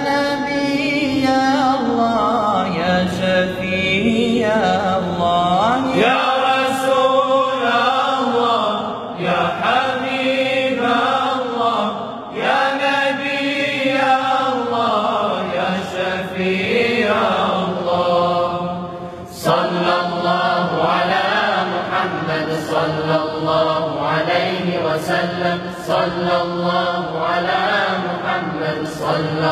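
Unaccompanied group of male voices singing a sholawat, an Islamic devotional song in praise of the Prophet Muhammad, in long phrases with brief breaks between them.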